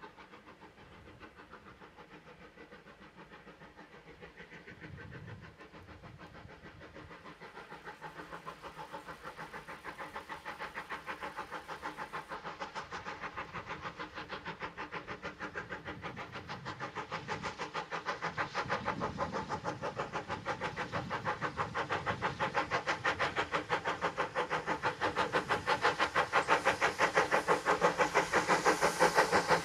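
GWR 4-4-0 steam locomotive 9017 'Earl of Berkeley' working a train, its exhaust beats in a fast, even rhythm that grows steadily louder as it approaches.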